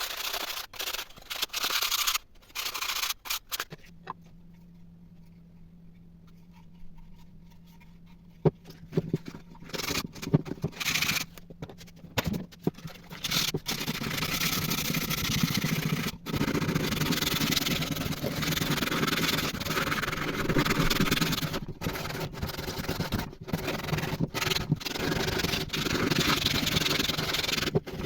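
Abrasive rubbing and scraping, chopped into short pieces. From about four seconds in a steady low hum runs beneath, with denser, harsher scraping noise over it from about nine seconds on.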